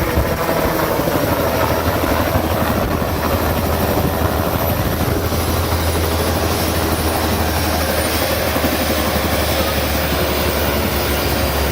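Helicopter running close by, a steady loud rotor and turbine sound with rapid, even blade chop throughout.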